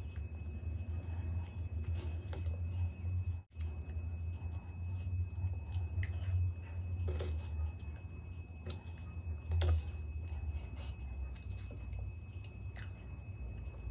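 Close-miked eating of dahi golgappa: a metal spoon scooping and clicking in a disposable cup, and soft wet chewing of yogurt-soaked puris, over a steady low hum. The sound cuts out briefly about three and a half seconds in.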